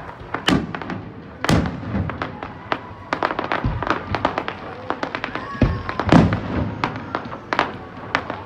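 Aerial fireworks display: a dense run of sharp pops and crackles from bursting shells, with a few deeper booms spread through.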